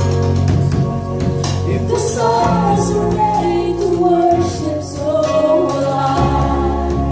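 Live worship band playing a slow song: a woman sings the lead over held keyboard chords, bass guitar and drums, and a deep bass note comes in near the end.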